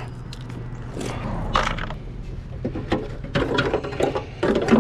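Scattered clicks, knocks and rattles of tools and car parts being handled, over a steady low hum.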